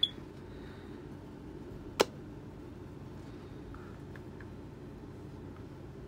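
Steady low hum of room tone, with a short click at the start that carries a brief high tone, and one sharp click about two seconds in.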